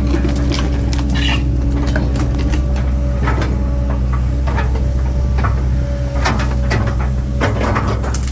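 1997 Link-Belt 2700 excavator's diesel engine running steadily, with repeated sharp knocks and cracks as the machine works through brush and downed alders.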